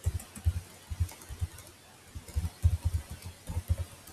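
Typing on a computer keyboard: a run of irregular key taps, heard mostly as soft dull thuds.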